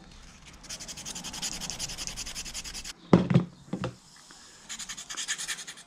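Scrunched aluminium foil rubbed quickly back and forth over a chrome metal fishing lure wetted with cola, scouring off salt and corrosion. The scratchy strokes come several times a second, stop for about a second and a half midway, then start again.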